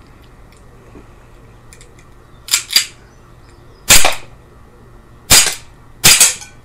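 Tangfolio 1911 CO2 blowback airgun pistol firing in quick succession: two slightly quieter sharp cracks a quarter second apart, then three loud shots about a second apart, each with the clack of the slide cycling.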